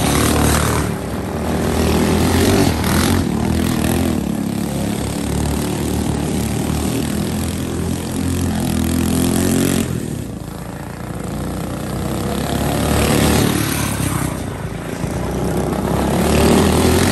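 Small go-kart engines running on a dirt track, revving up and down as the karts lap, the sound swelling and fading as they pass.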